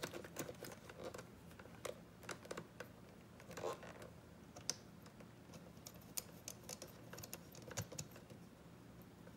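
Scattered light clicks and taps of small parts being handled as a wire is fitted onto an ATV starter solenoid; the clicks come irregularly, a few each second.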